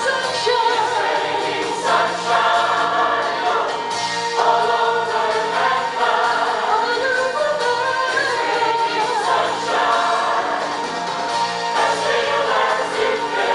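Mixed choir of men's and women's voices singing together, holding chords that change every couple of seconds.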